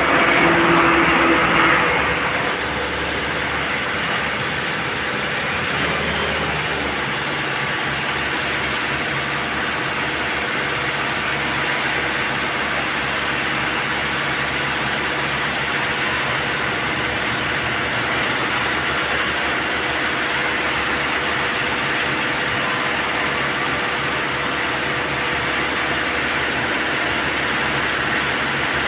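Concrete transit mixer truck running steadily with a dense mechanical rumble and rattle. It is a little louder for the first two seconds, then holds an even level.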